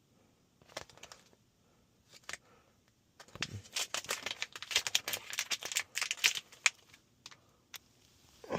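Rapid, irregular clicking and rattling of small hard objects being handled, a few scattered clicks first, then a dense run of clatter lasting about four seconds.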